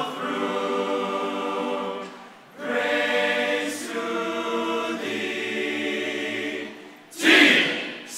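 Male choir singing held chords in two long phrases, then a loud group shout near the end.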